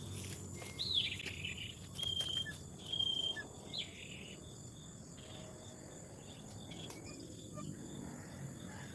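Insects keep up a steady high-pitched drone, with several bird whistles and short chirps in the first four seconds.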